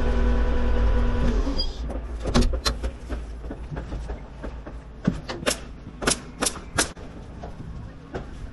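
A machine's engine running steadily, then dropping away about a second and a half in. A series of sharp knocks or clicks follows, several of them in quick pairs.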